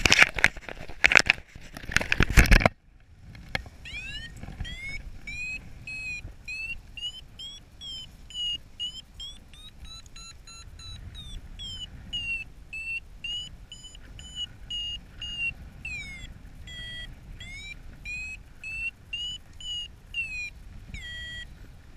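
Loud wind buffeting and rustling on the microphone that cuts off about three seconds in. After it, a paragliding variometer beeps quickly, about two or three beeps a second, its pitch climbing to a peak about ten seconds in and then easing back down. These are the climb tones of a glider rising in a thermal.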